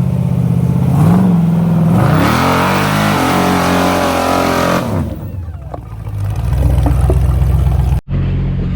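Off-road Jeep engine running and revving hard as it climbs over rocks, its pitch rising and falling, with a broad rushing noise over it for a few seconds in the middle. The engine sound breaks off for an instant near the end.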